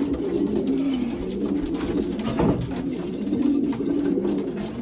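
Racing pigeons cooing in the loft: several low coos overlapping almost without pause.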